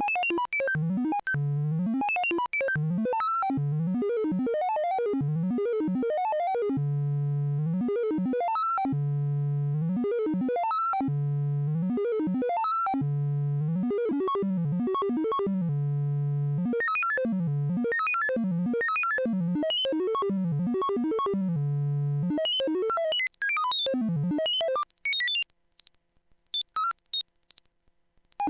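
CubuSynth Engine dual analog VCO (3340-based) synth module droning and warbling. Steady low notes with rich overtones alternate every few seconds with fast swooping, chaotic pitch sweeps from its modulation. Near the end it jumps to high chirping blips, broken by short silences.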